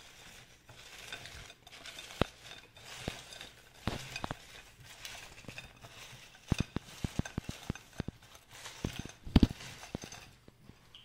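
A hand rummaging through a bowl of crisp air-fried french fries: a dry rustle with sharp clicks of fries and fingers against the bowl, busiest about six and a half to seven and a half seconds in and loudest near nine and a half seconds.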